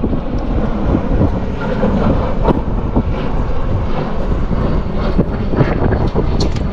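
Strong gusting wind buffeting the microphone as a loud, steady rumble, with scattered short knocks.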